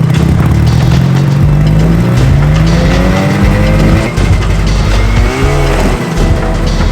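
1980 Polaris Gemini snowmobile's two-stroke engine revving as the sled accelerates. Its pitch rises steadily over the first three seconds, drops about four seconds in, then climbs again.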